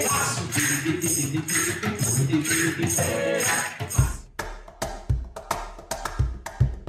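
Live acoustic folk music: singing over a bodhrán and jingling percussion. About four seconds in, it cuts to a wooden cajón played by hand on its own, a pattern of deep bass thumps and sharper slaps, about three strokes a second.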